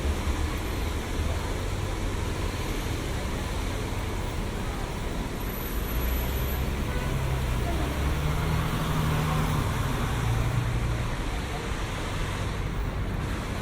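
Busy city street traffic in the rain: a steady rumble of passing vehicle engines over an even hiss, with faint voices of passers-by.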